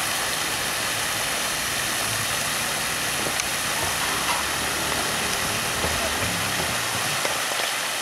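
Steady rushing hiss of swimming-pool water running and splashing, with no change in level.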